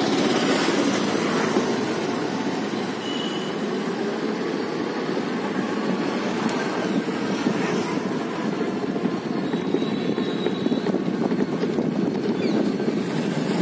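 Electric bicycle being ridden and picking up speed to about 20 km/h, heard as a steady low rushing noise of riding.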